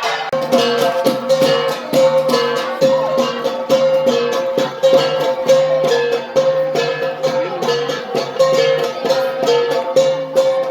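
Gangsa, flat bronze gongs, played together in an ensemble: a fast, even beat of several strikes a second, each gong ringing on at its own pitch.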